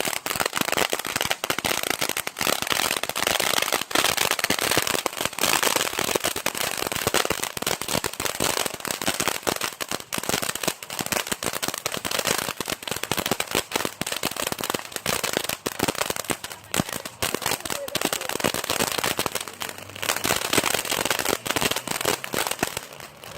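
TNT Fireworks Delirium firework going off in a dense, unbroken rapid crackle of small cracks and pops, with a short thinning about twenty seconds in before it dies down.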